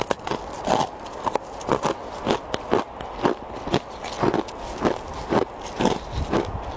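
Crisp crunching of ice and packed snow being bitten and chewed, a sharp crunch about twice a second, with a plastic spoon scraping into the block of snow near the end.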